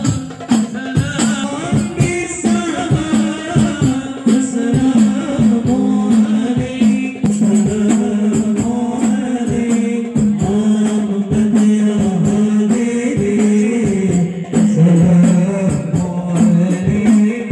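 A group of men singing to a fast, steady beat of hand-played frame drums, with one voice leading over a microphone.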